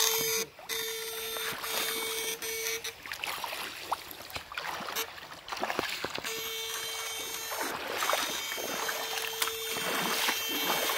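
High, steady electrical whine from a backpack electrofishing shocker, cutting in and out several times, over water sloshing and splashing as men wade through a shallow river.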